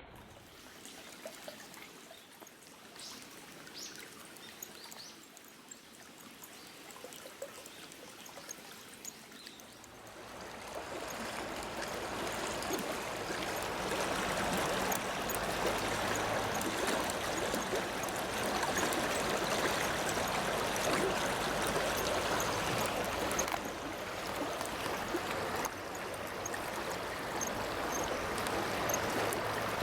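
Flowing water, a steady rushing noise that grows clearly louder about ten seconds in, with small ticks and splashes over it.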